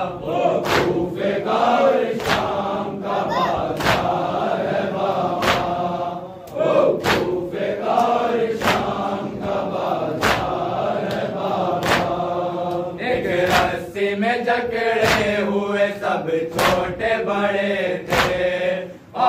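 Group of men chanting a Shia noha (lament) in unison, with sharp slaps of hands striking chests (matam) keeping a steady beat a little more than once a second. The chanting dips briefly about six seconds in and again near the end.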